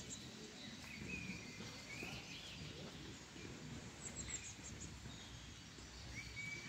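Faint outdoor park ambience: songbirds calling with short whistled notes, and a quick run of high chirps about four seconds in, over a steady low background noise.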